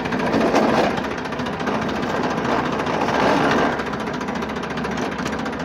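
Massey Ferguson tractor's diesel engine running in reverse gear with a loud noise from the transmission, swelling louder briefly twice. The noise turned out to come from a broken countershaft bearing, worn away once the gearbox oil had lost its lubricity.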